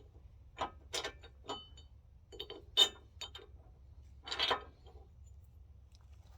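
Steel bolts and a D-ring bracket clinking against a steel winch bumper as the holes are lined up and the bolts pushed through: a string of sharp metallic clinks, the loudest about three seconds in, with a longer clatter a little after.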